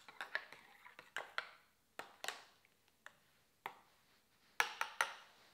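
Metal teaspoon clinking against the inside of a ceramic mug as a frothy drink is stirred: irregular light clinks, with three louder ones in quick succession near the end.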